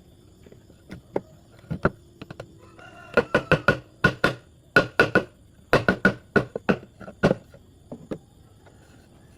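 Sharp knocks on wood as the parts of a knock-down wooden stool are struck together, perhaps with a mallet. There are a couple of single knocks first, then quick runs of strikes from about three seconds in until about seven, and a few more near the end.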